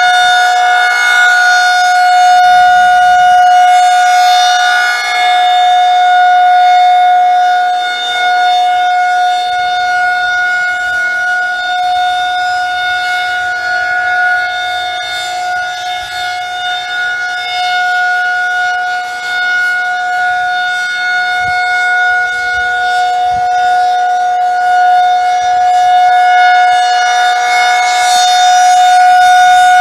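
Outdoor tornado warning siren sounding its routine monthly test: a loud, unbroken steady tone at a fixed pitch, its loudness swelling and easing slowly.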